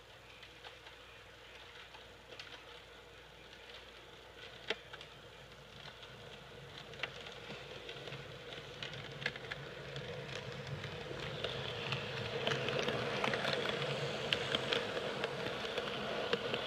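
HO scale model train running on the track and drawing nearer, a rumble with scattered clicks that grows steadily louder until it passes close by near the end.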